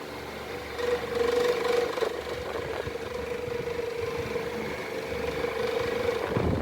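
Faet Super Clima 40 cm desk fan running: a steady motor hum over the rush of air from the blades, growing louder about a second in.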